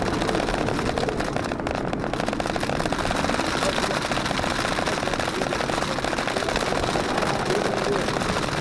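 Jeep Wrangler JKU driving on a gravel mountain trail in a storm: steady engine and tyre noise under a dense, rapid patter of rain and small hail striking the vehicle.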